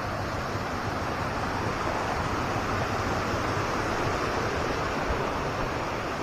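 Steady wind rushing over the microphone, with no break or change.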